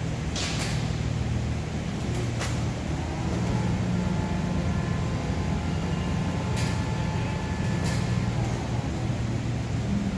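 Overhead crane carrying a steel coil and lowering it onto a flatbed trailer: a steady low mechanical hum, with a faint whine through the middle and four sharp clacks.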